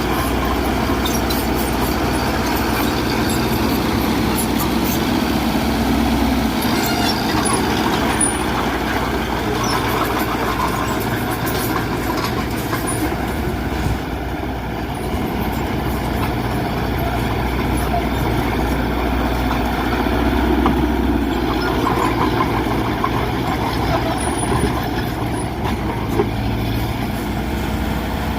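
Heavy diesel earthmoving machinery running, with a steady engine note that swells under load a couple of times.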